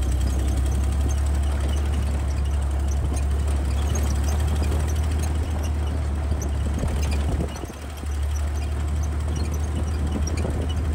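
Willys Jeep engine running in a steady low drone as it drives along a gravel dirt track, with tyre and road noise over it. The level dips briefly about seven and a half seconds in, then picks back up.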